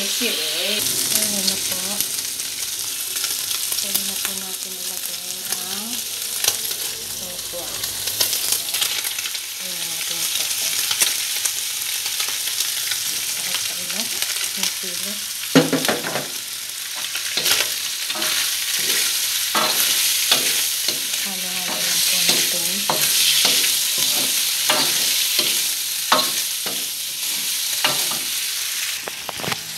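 Pork and strips of tofu stir-frying in a wok: a steady sizzle, with the metal spatula scraping and knocking against the wok, the knocks coming quick and frequent in the second half.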